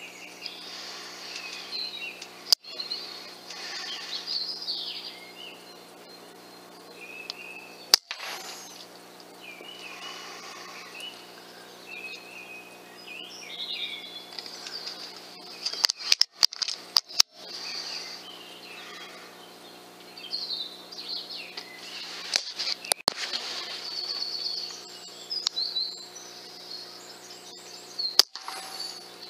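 Woodland birdsong, with several birds chirping and singing throughout over a steady low electronic hum. It is broken by several sharp clicks: once about 3 seconds in, again around 8 seconds, a cluster around 16 to 17 seconds, and more near 23 and 28 seconds.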